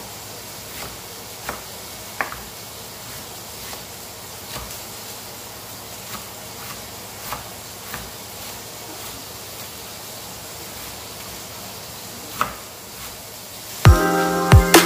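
Kitchen knife shredding cabbage on a plastic cutting board: scattered soft taps of the blade on the board at irregular intervals over a low hiss. Near the end, electronic music with a beat comes in loudly.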